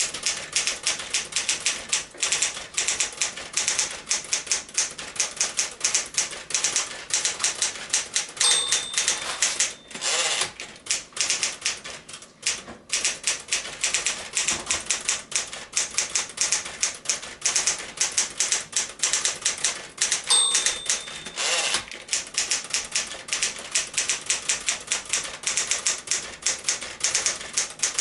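1964 Smith-Corona Galaxie II manual typewriter typing at a brisk pace, a rapid run of sharp keystrokes. Twice, about a third of the way in and again near three quarters through, a short bell-like ding is followed by a longer whirring rush, the line-end bell and the carriage return, before typing resumes.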